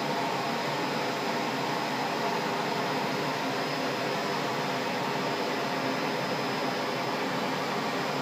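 Falcon seamless circular knitting machine for leggings running: a steady, even mechanical whirr with faint steady tones in it.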